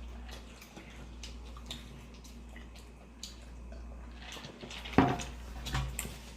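Mouth sounds of eating chips and dip: soft, wet chewing clicks over a faint low hum, with one louder, sharp crunch about five seconds in.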